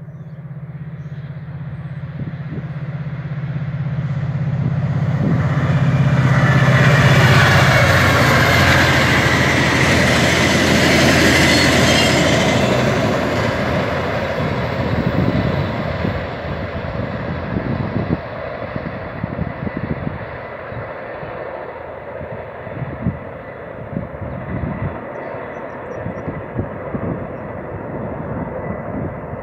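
A diesel-hauled train passing close by. The locomotive's engine drone and rushing noise build to a peak a few seconds in, then the rail cars' wheels clatter rapidly over the rail joints for the rest of the pass.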